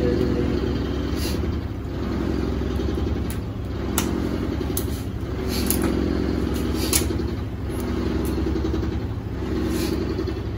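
Motor vehicle engines running in street traffic, a steady low hum that swells and fades, with a few sharp clicks.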